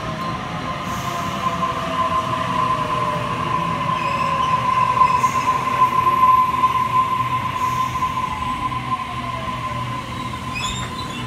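Sydney Trains Waratah double-deck electric train running past along the platform. A steady high squeal from the train runs throughout, its motor whine falls in pitch, and it is loudest about five to six seconds in.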